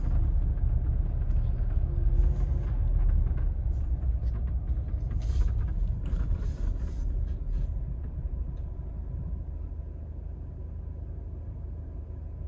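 Low, steady rumble of a Jeep Wrangler driving, with a few short knocks and rattles over it in the first eight seconds. The rumble grows quieter in the last few seconds as the Jeep slows.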